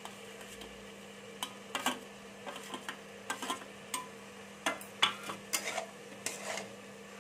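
A metal spatula scraping spice paste off a steel plate and into an aluminium kadai, then stirring wilted greens and potatoes, with irregular clinks and scrapes of metal on metal over a steady low hum.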